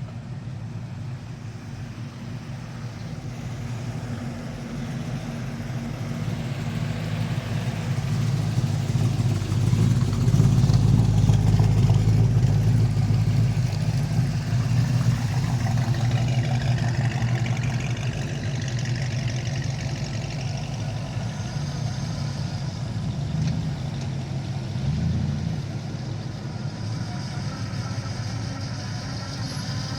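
Car engines running as cars drive slowly past. One comes close, its low rumble building to its loudest about ten to thirteen seconds in and then fading away.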